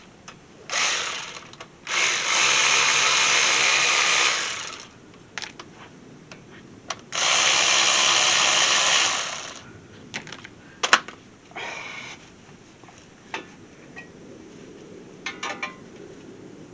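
A power tool runs in three bursts, two of them long and steady, as it loosens the front brake caliper bolts. Sharp metal clicks and clinks follow in the second half.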